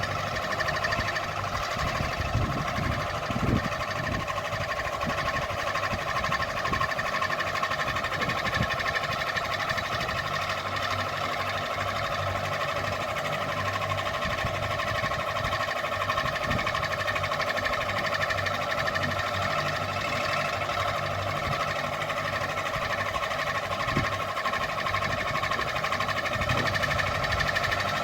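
Ceiling fan running steadily, a whirring hum with several held tones over a low, uneven rumble.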